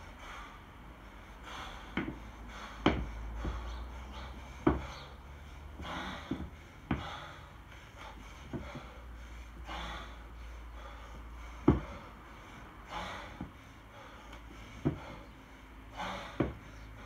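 Kettlebell lifter breathing hard and forcefully through a one-arm long cycle set with a 24 kg kettlebell, a sharp exhale about every three seconds in time with the reps. Sharp knocks and thuds from the lift come throughout, the loudest a few seconds in and near the middle.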